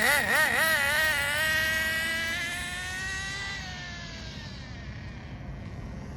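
Small two-stroke nitro engine of a Team Associated NTC3 1/10 RC touring car, revved in a few quick blips and then held in a steadily rising whine as the car accelerates. About three and a half seconds in, the pitch falls and the sound fades as the car pulls away.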